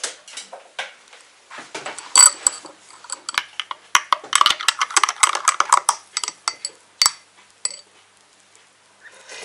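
Metal teaspoon stirring instant cappuccino in a glass tumbler, clinking against the glass. The clinks ring briefly and come fast in the middle, then die away near the end.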